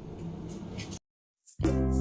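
Background music: a quiet passage that cuts off about halfway through, half a second of dead silence, then louder music with sustained low notes starting.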